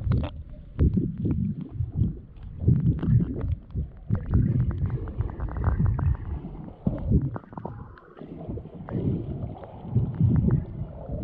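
Muffled underwater sound of snorkelers swimming, heard by a microphone under the water: low rumbling surges of moving water in uneven pulses, with scattered crackling clicks throughout.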